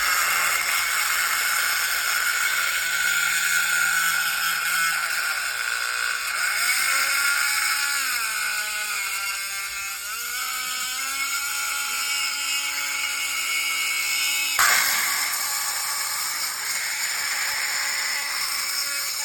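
Kobalt oscillating multi-tool running continuously with its blade cutting into a nail. Its pitch sags and wavers for a few seconds midway as the blade bites, and the sound shifts suddenly about three-quarters of the way through. The blade is dull, so the cut is slow.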